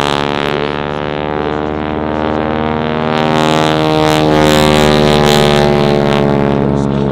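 Boeing Stearman Kaydet biplane's radial engine and propeller droning steadily in flight, swelling louder about halfway through as it passes closest.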